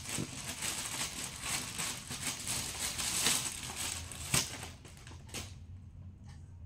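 Plastic courier mailer bag crinkling and rustling as it is handled and opened, with a couple of sharper crackles; about five seconds in it dies down to a few faint ticks.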